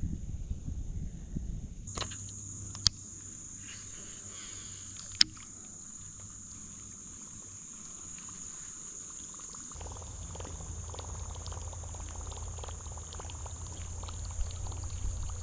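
Steady high-pitched drone of insects that starts about two seconds in, with two sharp clicks a couple of seconds apart. A low rumbling noise sits underneath at the start and again from about halfway through.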